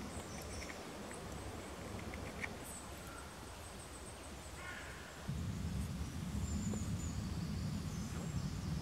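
Quiet woodland ambience with a few faint bird chirps and scattered soft clicks. A low rumble comes in about five seconds in and carries on.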